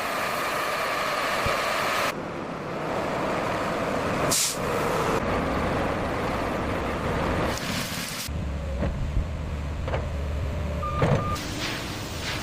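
Heavy machinery and vehicle engines running, the noise changing abruptly several times. There is a short hiss about four seconds in and a brief beep near the end.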